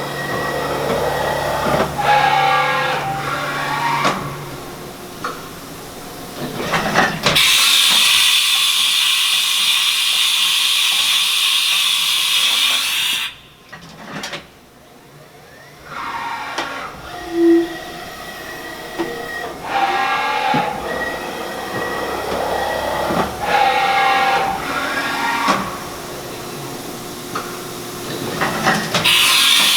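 Haas VF-2 CNC vertical machining center running, its drives whining in repeated rising and falling tones. A strong hiss lasts about six seconds in the middle, and clicks and knocks of the mechanism come throughout.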